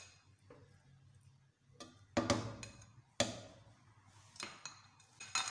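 A spatula scraping through fried rice and knocking against the pan, several separate strokes as egg pieces are mixed in.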